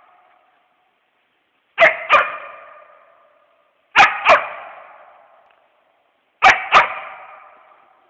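West Siberian Laika barking treed at a squirrel, the steady bark that holds the game and calls the hunter. It gives three double barks about two seconds apart, each trailing off in a long echo.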